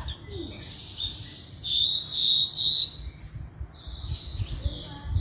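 Javan bush lark (branjangan) singing a fast run of chirps and trilled phrases, loudest in the middle.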